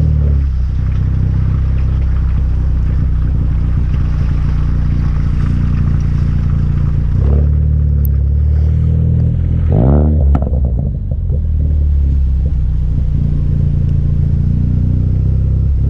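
Turbocharged car's AWE Track exhaust under way, with a steady low drone. About ten seconds in, the engine note sweeps up and back down and the level dips briefly, as when the throttle is lifted.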